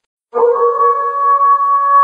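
Wolf howling: one long, steady howl that starts suddenly after a brief silence.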